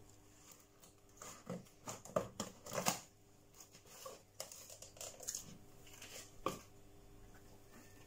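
Tape ripped from a cardboard parcel and the box flaps pulled open: a string of short rips and cardboard rustles, loudest about two to three seconds in.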